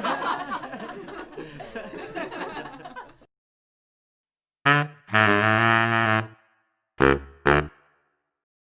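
Sound-effect clips: a dense, wavering jumble for about three seconds, then after a pause four brass-like honks: a short one, a long held one, and two short, lower blasts near the end.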